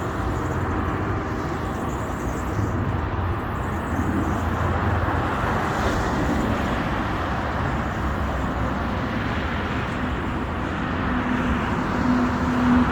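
Industrial food mixing machine running steadily, a motor hum under an even churning noise; a steady low tone joins in near the end.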